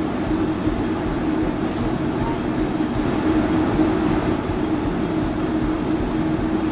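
Airliner cabin noise in flight: a steady rush of engine and airflow noise with a low hum.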